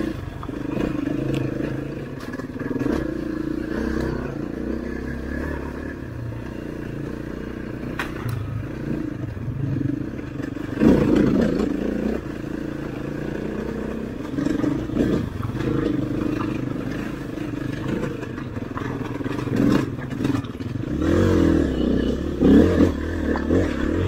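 Off-road motorcycle engine running over a rough rocky trail, its revs rising and falling with the throttle, with stones clattering and scraping under the wheels and the odd sharp knock as the bike hits rocks.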